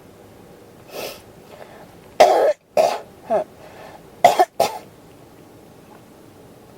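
A person coughing in a fit: about five short coughs in two quick runs, three together and then two more, after a softer rush of breath about a second in.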